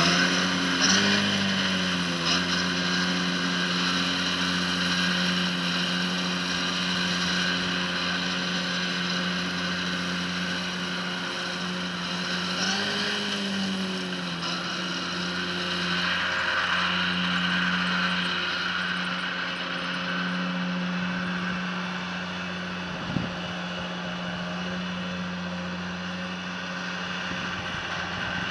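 Tractor diesel engine running steadily under load while pulling a working mower through grass, its pitch wavering briefly twice, growing gradually fainter as it moves away. One short knock sounds late on.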